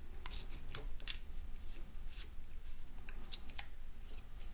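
Self-adhesive aluminium foil tape crinkling under fingertips as it is pressed and smoothed around a lure's lead weight: a quiet, irregular run of small crisp clicks and crackles.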